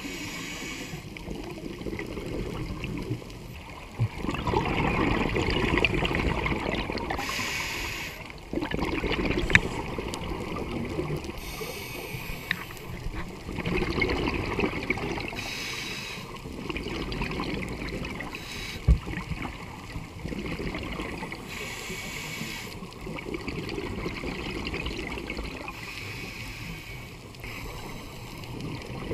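Scuba diving heard underwater: bubbly exhalations from a diver's regulator come about every four to five seconds over a steady rush of water, with a couple of sharp knocks.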